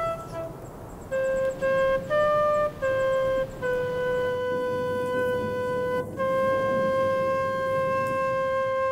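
Background music: a solo flute playing a slow melody, a few short notes and then two long held notes.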